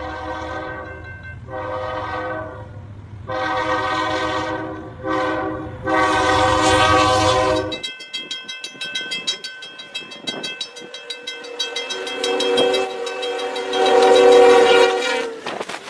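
A diesel locomotive's multi-chime air horn sounds a series of blasts, long, long, long, short, long, over the low rumble of the train: the warning for a grade crossing. Then a second locomotive horn sounds one long blast over a fast, steady ringing, typical of a crossing bell.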